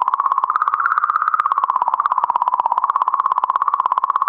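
Sonified magnetic-field oscillations of comet 67P, made audible from spacecraft data: a fast, even train of bleeps on a tone near 1 kHz whose pitch wavers gently up and down. The changes are thought to come from particles from the comet, and perhaps from the sun, travelling through the comet's magnetic field.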